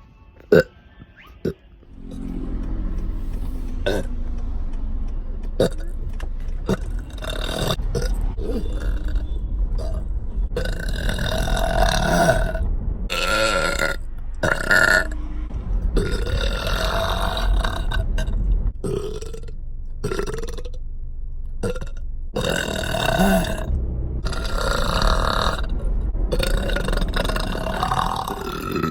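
Prolonged, low belching that starts about two seconds in and runs on almost without a break, its tone shifting throughout. A couple of short sounds come before it.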